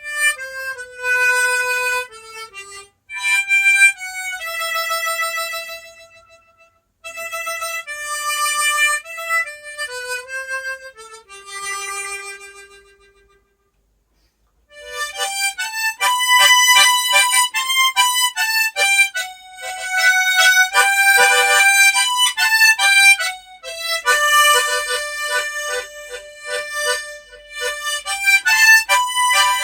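Harmonica in G playing a slow single-note melody with short breaks. It stops for about a second, then comes back fuller, with several notes sounding together and a fast pulsing rhythm.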